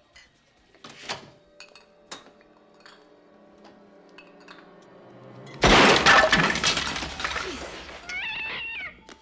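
A few faint clinks, then a sudden loud crash of breaking glass about halfway through that rings out over a few seconds, with a short wavering high-pitched sound just before the end.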